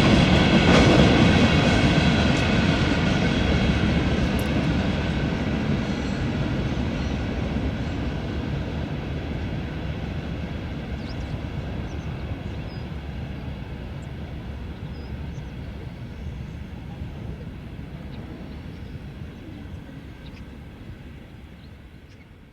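Freight train rolling past on the rails, a dense rumble with a steady high ringing over it, fading gradually away into the distance.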